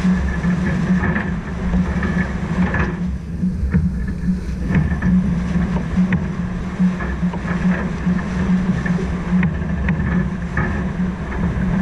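Sailboat under spinnaker moving through the water, with wind rushing over the camera microphone as a steady low rumble and a few light ticks scattered throughout.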